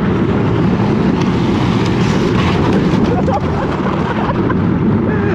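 Steady, loud vehicle noise with wind rumbling on the microphone, as of a small vehicle on the move.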